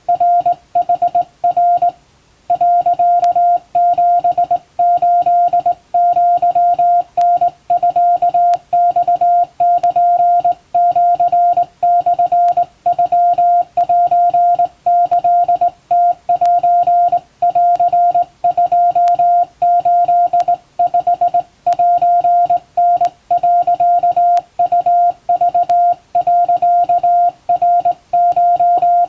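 Hand-keyed Morse code: a steady, mid-pitched beep switched on and off in short dots and longer dashes, sent on a straight key in Japanese wabun code. The keying runs on continuously, with a brief pause about two seconds in.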